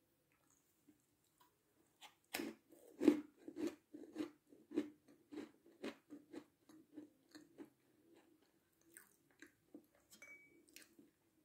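A small piped meringue being bitten and chewed. It starts about two seconds in, then goes on as regular chewing at about two chews a second, loudest at first and fading after about eight seconds.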